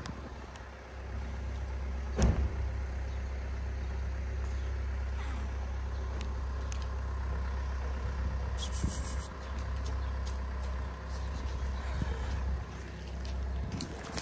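Steady low rumble of a motor vehicle engine running, with a single sharp thump about two seconds in.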